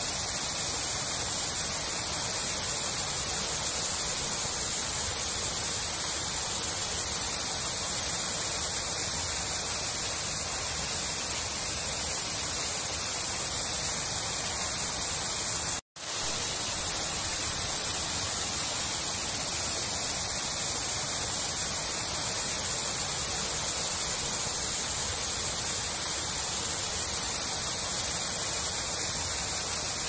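Water falling in many thin streams down a rock-faced wall fountain: a steady, even splashing hiss that cuts out for an instant about halfway through.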